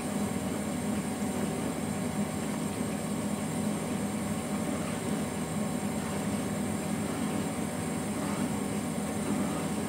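A pan of spiced ghee, pineapple and milk liquid boiling over a gas burner: a steady, even hiss with no breaks.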